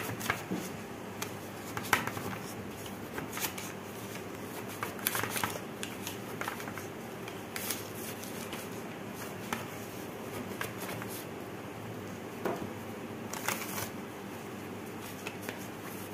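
A knife run around the inside of an aluminium cake pan, scraping and rustling the paper lining to loosen the cooked banana cake: scattered light scratches and papery crinkles.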